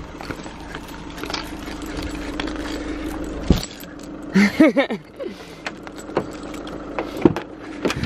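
A car running at the kerb, a steady low hum that stops with a sharp thump about three and a half seconds in. Then come a brief voice-like sound and scattered clicks and rattles of handling near the car door.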